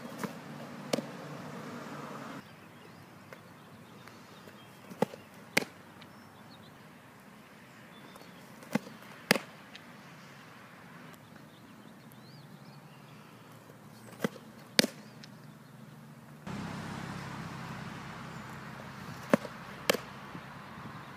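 Fastpitch softball pitches to a catcher: five times, a pair of sharp pops about half a second apart, every four to five seconds, from the pitch and the ball smacking into the catcher's leather mitt.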